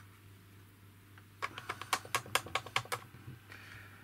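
A quick, uneven run of about ten small plastic clicks, from spring-loaded test-hook clips being snapped onto a resistor's leads, over a steady low hum.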